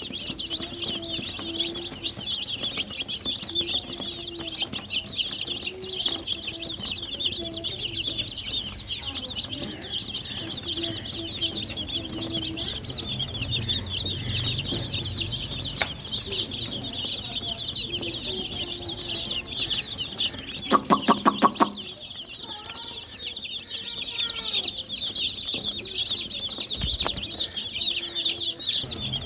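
Many newborn chicks peeping, a dense stream of rapid high chirps, over a hen's low, repeated clucking. About two-thirds of the way through comes a short run of about seven loud, rapid calls, and the peeping thins for a moment afterwards.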